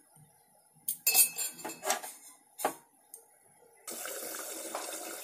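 A metal slotted spatula clinking and knocking against a metal kadai and set down on the stovetop, several sharp strikes. About four seconds in, a steady hiss sets in suddenly: the fish curry boiling hard over a high gas flame.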